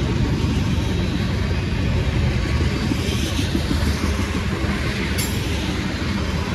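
Freight train cars rolling past close by: a steady rumble of steel wheels on rail, with one sharp click about five seconds in.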